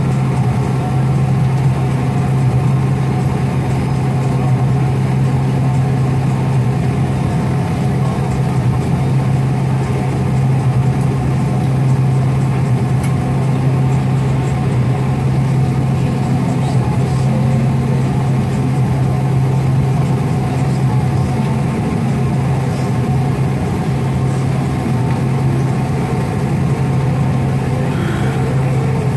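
Airliner's turbofan engines running at idle thrust while the jet taxis after landing, heard from inside the cabin beside the wing: a steady low hum over an even rushing noise.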